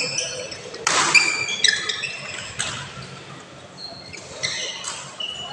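A badminton racket strikes the shuttlecock sharply about a second in, with fainter hits later, amid bursts of short, high-pitched sneaker squeaks on the court floor, echoing in a large hall.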